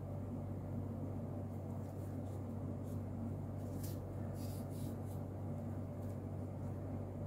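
A steady low hum throughout, with a few faint, brief scratchy rustles about four to five seconds in as yarn is drawn through crocheted fabric with a needle.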